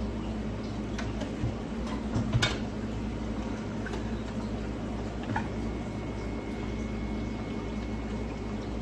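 Beef and broth cooking on a gas stove: a steady hiss with a low hum underneath. A few light clinks of kitchenware, about one, two and a half and five seconds in.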